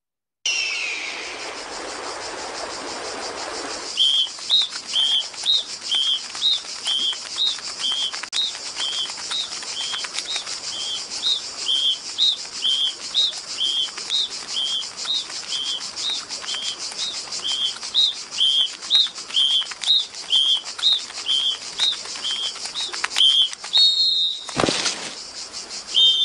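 Nature-film soundtrack played through a video call: a steady high hiss with a short chirp repeating about twice a second from about four seconds in. Near the end a sudden swoop drops sharply in pitch.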